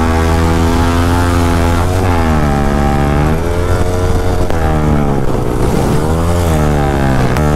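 Yamaha motorcycle engine running hard at highway speed, with wind rush on the microphone. Its pitch drops and climbs back about two seconds in at an upshift from fourth to fifth gear, then dips and rises several times as the throttle is rolled off and on.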